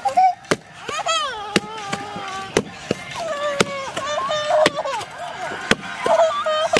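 Wooden pestle pounding fufu dough in a wooden mortar: dull, regular thuds about twice a second, with voices calling alongside.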